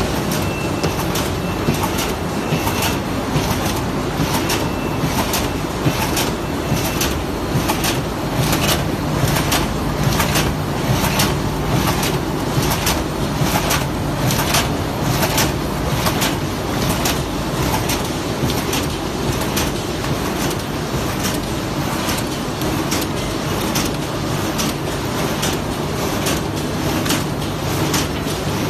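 Automatic corrugated box die-cutting machine running, clacking in an even rhythm of about two strokes a second over a steady mechanical hum.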